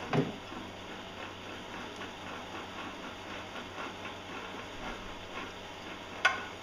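Faint, rapid clicking of a hand ratchet turning off the pinion nut at the bottom of a Mercruiser Bravo 3 lower unit's driveshaft, with a metal knock at the start and a sharp metallic clink near the end.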